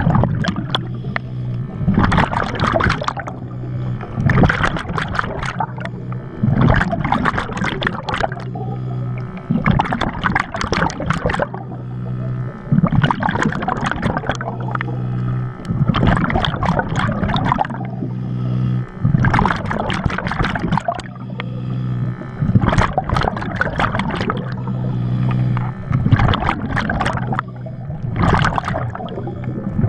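Scuba diver breathing underwater through a regulator: a rough rush of exhaled bubbles about every three to four seconds, with a steady low hum between breaths.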